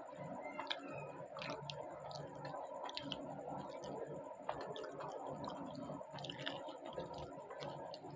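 A person eating luchi with cholar dal: chewing with many small wet mouth clicks and smacks, scattered irregularly, over a steady background hiss.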